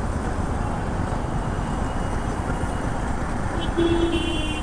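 Royal Enfield Meteor 350's single-cylinder engine running steadily while riding in traffic, with wind rumble on the microphone. A vehicle horn sounds briefly near the end.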